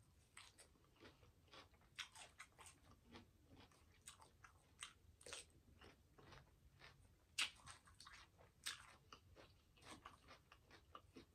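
Faint, close-miked chewing of a mouthful of raw vegetable salad: irregular crisp crunches, with a few louder ones about two-thirds of the way through.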